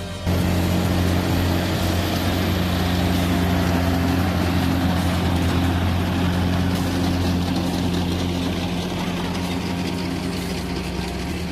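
JCB Fastrac tractor's diesel engine running steadily with a low hum as it pulls a Krone loader wagon close past. The sound cuts in abruptly just after the start and eases off a little toward the end as the rig moves away.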